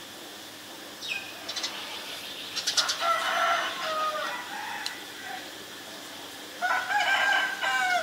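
A rooster crowing twice, each crow about two seconds long, the second near the end. A short falling bird note and a few faint clicks come shortly before the first crow.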